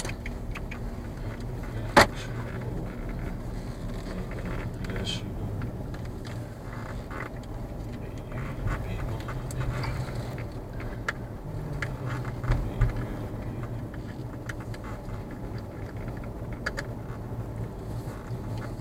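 Car cabin noise while driving: a steady low engine and road drone, with scattered small clicks and rattles and one sharp click about two seconds in.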